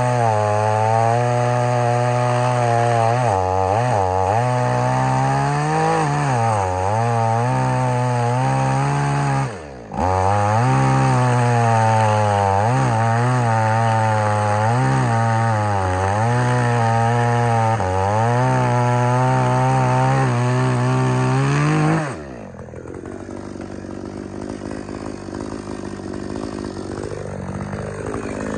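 Built Hard two-stroke gas chainsaw cutting a log at high revs, its pitch dipping and recovering again and again as the chain bogs in the wood, with a brief drop about ten seconds in. About 22 seconds in the revs fall away as the cut finishes, and the saw runs on much quieter.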